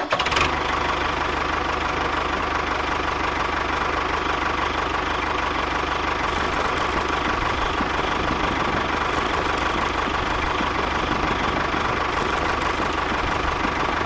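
A small motor running steadily with an even, fast rattling buzz, switching on suddenly at the start.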